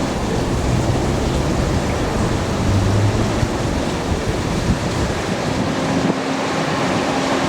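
Train rolling past with a steady rushing rumble that eases off about halfway through; a faint steady tone comes in near the end.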